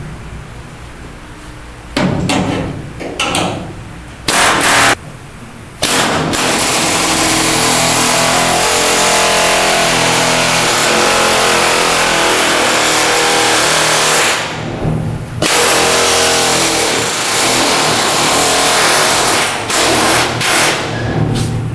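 Unmuffled pneumatic air chisel with a seam-buster bit hammering through the sheet-metal seams of a car's rear quarter panel. It starts in a few short bursts, then runs in long loud stretches of rapid hammering, broken by a pause about fifteen seconds in and by short bursts near the end.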